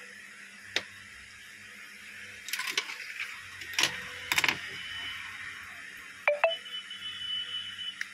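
Sharp plastic clicks and clacks of a feature phone's back cover, battery and body being handled and set down on a glass countertop, in a few separate clusters. A faint steady hum lies under it, and a thin high tone is heard near the end.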